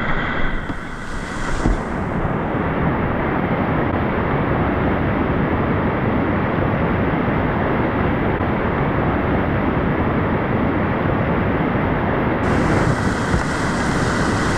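Loud, steady rush of whitewater in a river rapid as a kayak runs through it, the water noise filling the microphone.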